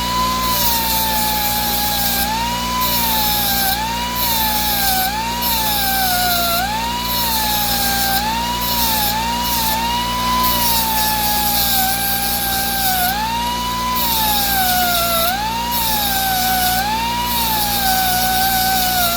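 Die grinder running as it sharpens hedge trimmer blade edges: a high whine that dips in pitch and recovers again and again as the tool is loaded and eased off. A hissing grind comes and goes with it, breaking off briefly every second or two.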